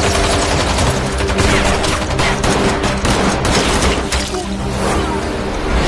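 Sustained automatic gunfire, many shots in quick succession, over dramatic background music with held notes.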